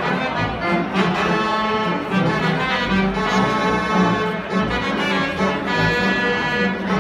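Restored Robert Morton theatre pipe organ playing, with held chords that change every second or so over a steady bass note.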